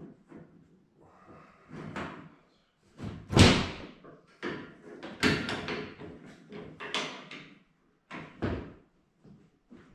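UTV windshield panel knocking and thudding against the Kawasaki Mule Pro-FXT's cab frame as it is handled into place: a string of irregular knocks, the loudest about three and a half seconds in.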